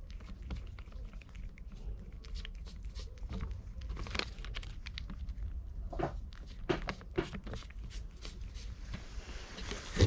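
A cat chewing and licking food off a paper held to its mouth: a run of small, wet clicking chews and licks with light paper crinkling, over a low steady rumble, and a sharper knock at the very end.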